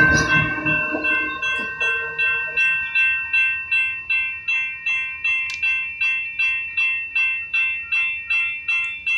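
Railroad grade-crossing warning bell ringing in an even rhythm, about two strikes a second. The rumble of the passing train's wheels fades out in the first second or so.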